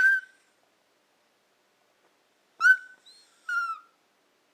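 Baby squealing: a few short, high-pitched squeals, one trailing off at the start, a sharp loud one about two and a half seconds in, and a falling one a second later.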